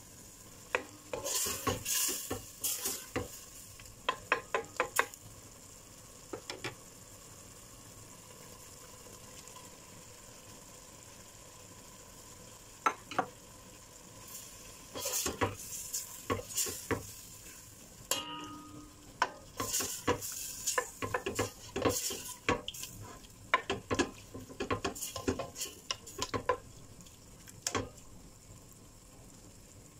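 Black slotted spoon stirring and scraping against a stainless steel stockpot in bursts of quick strokes, over a faint sizzle of squid, shrimp and garlic frying in olive oil. A few seconds of quieter sizzling with little stirring come before the middle.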